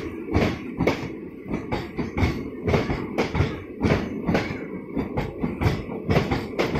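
Indian Railways passenger coaches rolling past, their wheels clacking rhythmically over rail joints about twice a second over a steady rumble.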